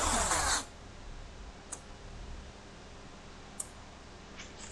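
Painter's tape pulled off its roll with a short rip at the start, then quiet handling of the tape on the wheel barrel with a few faint ticks.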